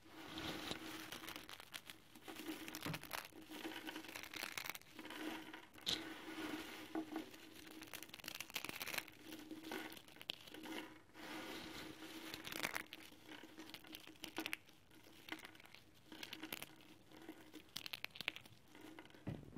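Dry instant ramen noodles crunching and crackling as hands crumble and break them, in dense, irregular bursts of small snaps.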